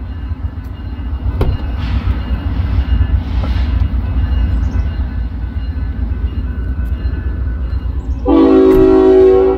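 Union Pacific freight train running with a heavy, steady low rumble. Near the end the locomotive's horn sounds once, a single blast about a second long and the loudest thing heard.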